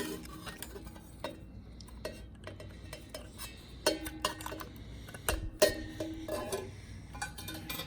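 Scattered light clicks and clinks of plastic wire-harness connectors being handled and plugged into a motorcycle's toggle-switch connectors, with a sharp click near the start and another about five and a half seconds in.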